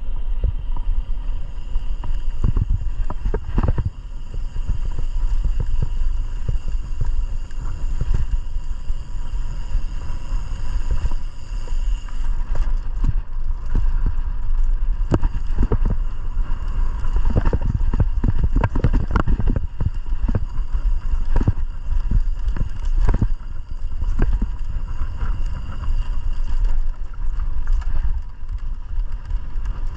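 Mountain bike being ridden down a dirt trail: a steady low rumble of wind on the microphone, with frequent knocks and rattles as the bike goes over bumps.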